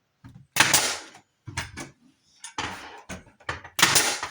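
Four sharp knocks on wood, about a second apart, each ringing out briefly, as a solid wood door is worked into place during hanging.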